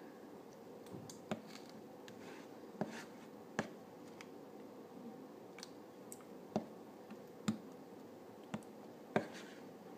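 Metal spoon stirring and poking slime on a paper plate, making faint, irregular clicks and taps, about eight in all.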